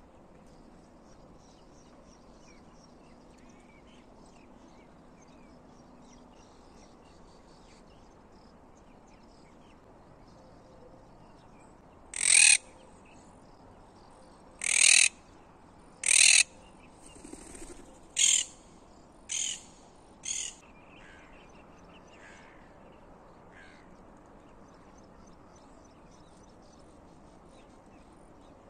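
A crow cawing six times over about eight seconds, starting about twelve seconds in; the first three caws are loud and the last three fainter. Small birds chirp faintly in the background.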